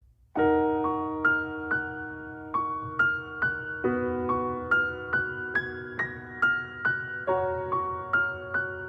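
Piano intro of a song: a slow run of single struck notes over held chords, starting about half a second in.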